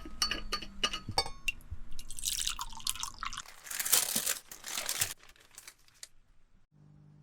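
Bicycle assembly work: a quick run of sharp metallic clicks and knocks, then several seconds of hissing in bursts that stops about six seconds in.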